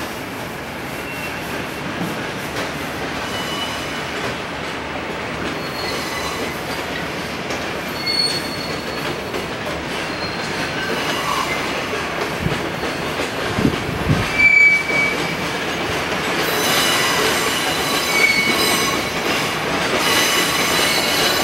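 Trains running over rail tracks, their wheels squealing in thin high tones that come and go over a steady rumble. A few low thumps come a little past the middle.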